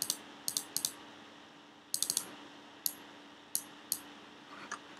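Computer keyboard keys clicking as numbers are typed into fields: a few quick runs of two to five clicks in the first half, then single clicks about a second into the second half, over a faint steady hum.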